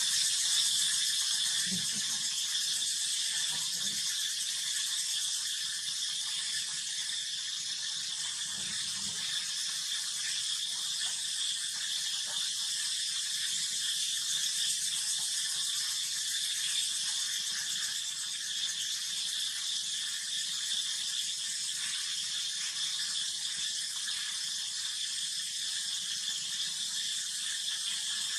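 Steady, high-pitched drone of insects with no break, with a few faint soft knocks in the first seconds.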